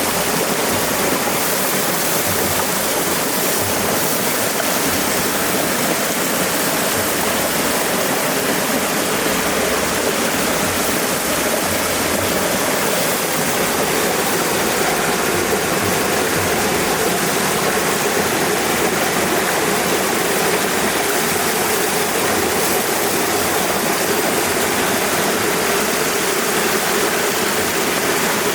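Steady rush of flowing river water, an even wash of noise that does not change.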